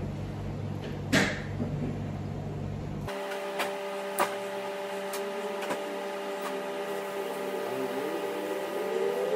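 A few sharp clicks of fish-bone tweezers pulling pin bones from a raw salmon fillet, over a steady hum. About three seconds in, the low rumble cuts out and steady tones remain, wavering near the end.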